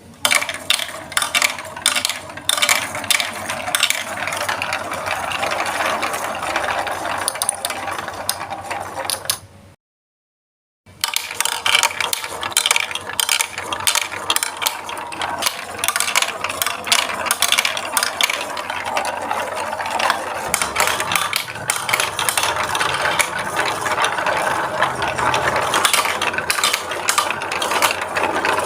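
Marbles rolling and clattering along a plastic Lego Duplo block track, a dense, steady run of clicks over a rolling rumble. It breaks off into a second of silence about ten seconds in, then resumes just as busily.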